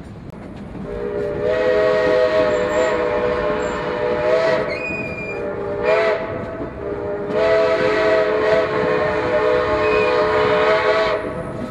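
Steam whistle of the West Side Flume and Lumber Company No. 9 steam locomotive, sounding several notes at once in a long blast, a short one, and another long blast, over the rumble of the train running.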